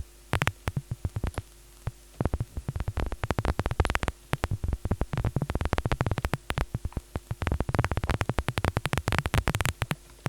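Synthesized paper-crumpling sound from a Vital software-synth patch: dense, irregular crackly clicks that speed up and thin out in runs of a few seconds, with short pauses between the runs. The clicks are arpeggiator and echo-delay triggers on filtered noise, still a work in progress toward a convincing crumple.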